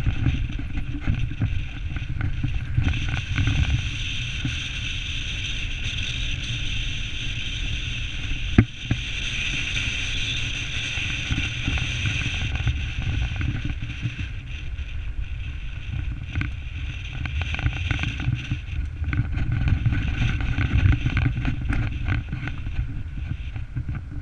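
Car driving on a gravel road: a steady rumble of tyres on loose gravel mixed with wind buffeting the microphone, and one sharp click about eight and a half seconds in.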